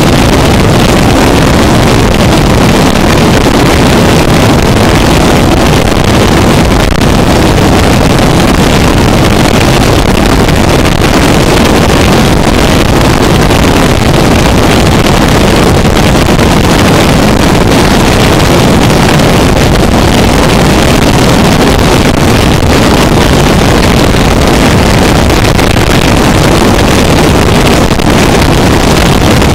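Harsh noise music: a loud, unbroken wall of dense distorted noise, heaviest in the low and lower-middle range, with no beat, melody or pauses.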